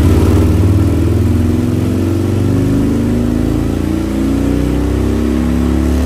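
A Harley-Davidson trike's 103-cubic-inch V-twin, on a modified exhaust pipe, pulls under load on a chassis dyno. It swells in loudness at the start, then climbs steadily in pitch as it revs up through a dyno run.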